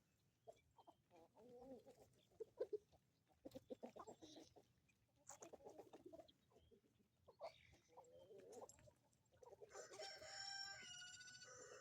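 A flock of chickens clucking softly on and off, with a long rooster crow about ten seconds in.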